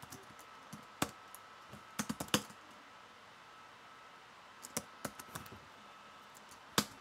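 Computer keyboard keystrokes: scattered single key clicks and short runs of typing, with the loudest click near the end.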